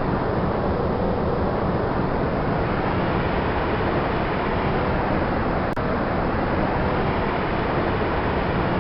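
Sandstorm sound effect: a steady, unbroken rush of wind and blowing sand, weighted toward the low end, with a single faint click a little past halfway.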